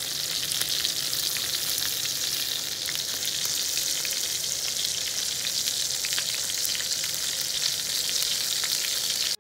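Steady sizzling with fine crackles from hot fat and butter in frying pans: green beans in butter and olive oil, and duck breasts searing in a stainless skillet.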